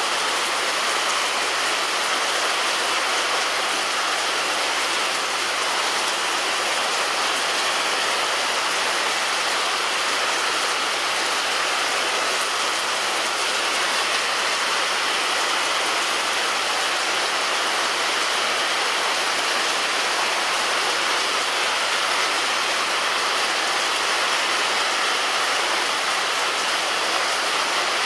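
Steady heavy rain falling on a roof, an even hiss of drops with no pauses.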